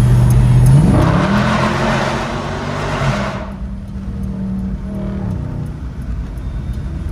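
2019 Dodge Charger Scat Pack's 392 Hemi V8 with its mid muffler deleted, heard from inside the cabin under hard acceleration on the highway. The engine note climbs in pitch about a second in and runs loud for a couple of seconds, then eases back to a lower, quieter drone.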